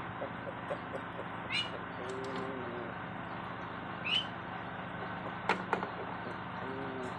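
Rooster in a wooden slatted cage making two short low clucks, with two sharp knocks about five and a half seconds in as its foot strikes the plastic cup and wooden slats. Small birds chirp briefly twice over a steady hiss.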